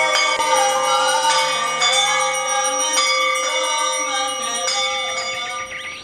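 Brass hand gong struck with a wooden mallet about once a second, its tones ringing on and overlapping, dying away near the end.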